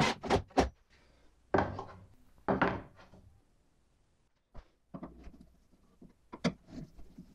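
Irregular knocks and clatters of wood and plastic on a table saw as parts and tools are handled and set down, the loudest near the start and about two seconds in, lighter taps later.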